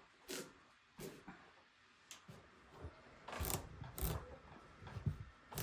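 Irregular knocks and thuds of things being handled: two light taps in the first second, a cluster of heavier thuds about halfway through, and one sharp, loud knock at the very end.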